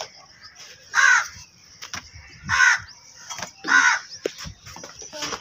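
A crow cawing three times, short calls roughly a second and a half apart.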